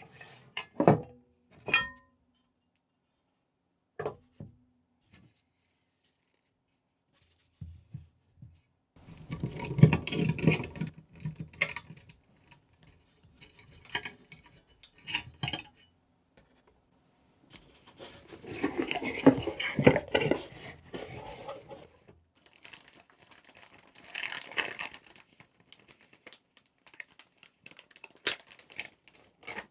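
Close-up handling of PC parts and their packaging: sharp clicks and light knocks, then two longer stretches of rustling and tearing packaging, about ten seconds in and again near twenty seconds.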